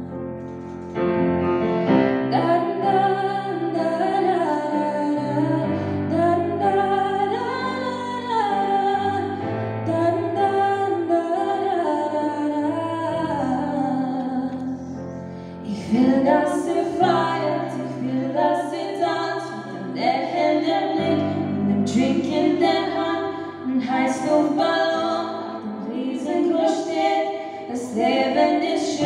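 A young woman sings a solo song with piano accompaniment. Her melody glides over sustained chords that change every few seconds, and from about halfway through the piano turns more accented and rhythmic.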